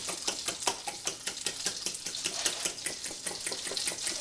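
Raw eggs being beaten with a fork in a bowl: a steady, quick rhythm of about five or six strokes a second, the tines clicking against the bowl and the beaten egg sloshing.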